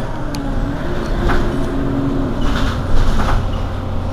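Mercedes-Benz Citaro city bus engine idling at a standstill: a steady low hum, with a few short bursts of hiss over it, about a second in and around the three-second mark.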